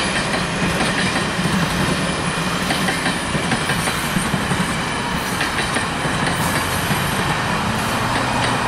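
Canadian Pacific heavyweight passenger and business cars rolling past: a steady rumble of steel wheels on rail with light rail clicks.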